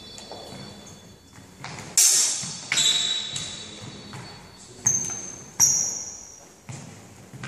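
Longsword blades clashing in a bout. There are four sharp strikes, two in quick succession about two seconds in and two more about five seconds in, and each leaves a high metallic ring that fades away, with a few lighter knocks in between.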